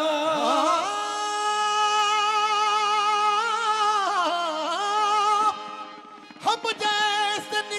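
Qawwali singing: a male lead voice holds one long, wavering note over a steady harmonium drone, breaks off about five and a half seconds in, then comes back with quick ornamented runs.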